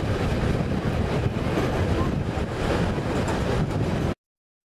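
Rushing wind on the microphone and the rumble of the passenger train running along the track, heard from an open carriage window of the moving train. The sound cuts off abruptly to silence about four seconds in.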